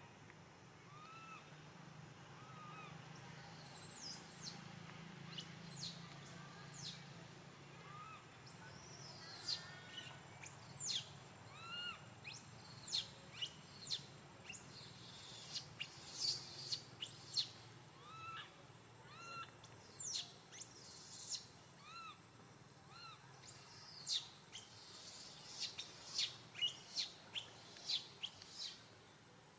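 Animal calls: a soft, short rise-and-fall call repeated every second or two, fitting a baby monkey's coo. From about three seconds in, many louder, high, quickly falling chirps come in clusters over it.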